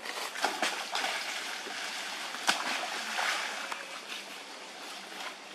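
Macaques swimming and splashing through water: a run of quick splashes and sloshing, with one sharp splash about halfway through, easing off near the end.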